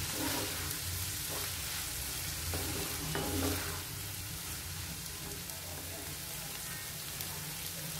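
Pork, onion and cabbage momo stuffing sizzling steadily as it fries in a pan, with a wooden spatula stirring and scraping through it a few times in the first half.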